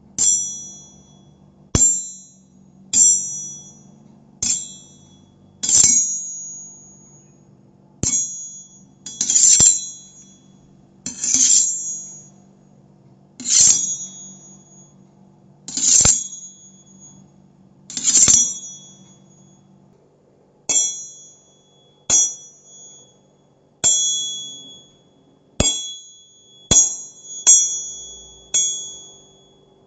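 A run of knife sound effects: about eighteen separate metallic blade strikes and scrapes, a second or two apart, each ending in a high ring. A few are longer scraping draws of the blade.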